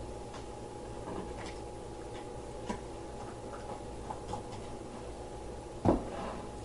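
Scattered light clicks and taps, with one louder knock about six seconds in, over a steady low hum.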